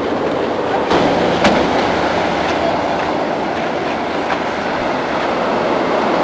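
Steady road rumble of a vehicle driving on the highway, tyres on pavement, with a couple of sharp knocks between one and two seconds in.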